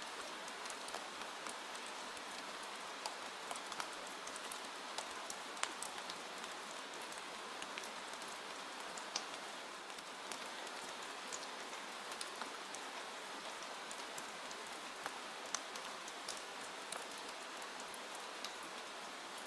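Steady rain falling on a window, a constant hiss with many scattered sharp drop ticks striking the glass.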